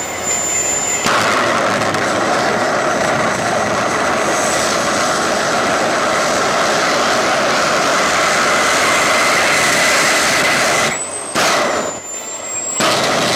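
Homemade gas-turbine jet engine built from a truck turbocharger, mounted on a go-kart. It starts idling with a high whine, and about a second in it is opened up to a loud steady jet roar held for about ten seconds. Near the end it is throttled back, with two short blasts of power as the high whine returns.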